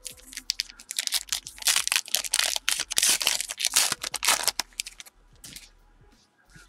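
A trading card pack's wrapper being torn open and crumpled: a dense crackling that lasts about four and a half seconds, then stops.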